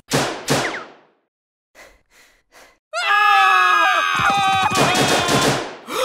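Sound-effect gunshots: two sharp shots in quick succession, then a few soft taps. About three seconds in, a chorus of high cartoon-like screams sliding down in pitch begins, with rapid machine-gun fire under it from about a second later.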